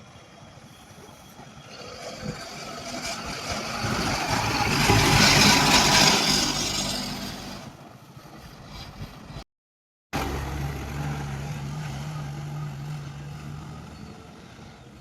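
A heavy vehicle engine at an excavation site swells to a loud peak about five seconds in and fades away. After a moment of silence just before ten seconds, an engine runs steadily with a low hum that fades toward the end.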